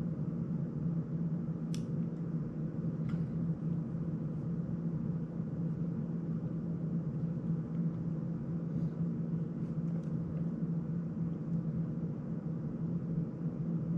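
A steady low mechanical hum throughout, with a few faint small clicks as parts of a small FPV drone frame are handled on a workbench, about two seconds in, three seconds in and near ten seconds.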